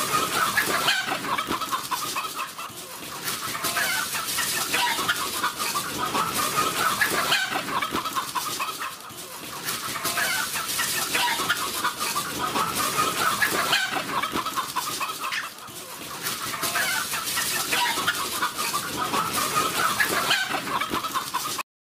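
A flock of chickens clucking, many birds calling over one another without a break, with a rooster crowing now and then; the sound cuts off suddenly just at the end.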